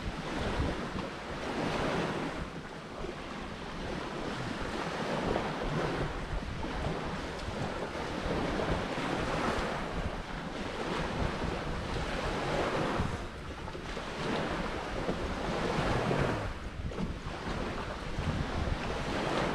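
Sea surf washing onto a sandy beach, swelling and ebbing every few seconds, with wind buffeting the microphone.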